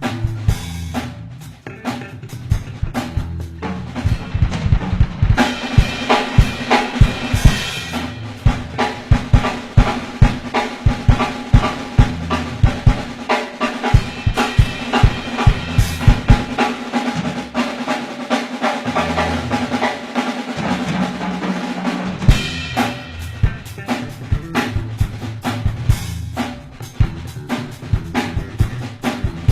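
Drum kit played at full volume: a fast, busy groove of kick, snare and rimshot hits with rolls and fills, the hits coming several to a second throughout.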